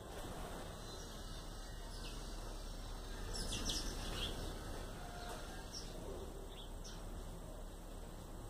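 Birds chirping: a quick cluster of short, high chirps about three and a half seconds in, then a few fainter chirps, over steady outdoor background noise.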